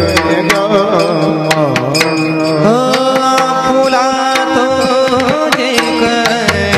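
Devotional bhajan music: a voice sings a line of the refrain about a second and a half in, then held melodic tones go on over steady percussion strokes.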